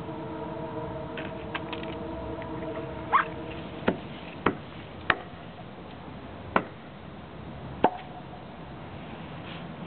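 A held chord of several steady tones stops about four seconds in. Five sharp, irregularly spaced knocks follow, the loudest sounds here, with a short rising squeak just before the first.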